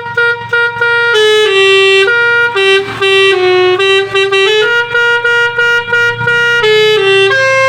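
Basuri telolet musical horn on a car playing a tune: a string of short, quick toots, then longer held notes stepping between a few pitches. A steady low hum runs underneath.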